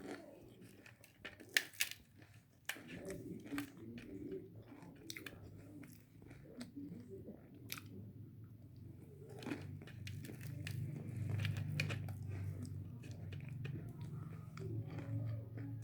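A person biting and chewing crunchy fried piaji (onion fritters) close to the microphone, with many short crisp crunches and mouth noises. A low hum joins in about halfway through and is the loudest part.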